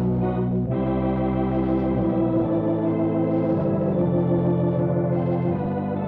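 Radio show theme music: held organ chords that change every second or two.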